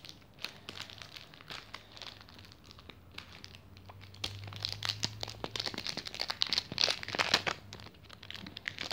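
Plastic wrapping on a toy capsule ball being picked at and peeled off by hand, crinkling and crackling; the crackling grows louder and busier from about four seconds in.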